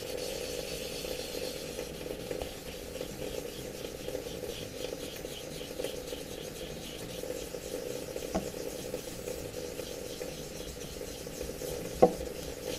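Damp 1500-grit sandpaper being rubbed back and forth over a filler-primed 3D-printed PLA part: a steady, quick, gritty wet-sanding rub, taking off the black guide coat. Two light knocks break in, one about two-thirds of the way through and one near the end.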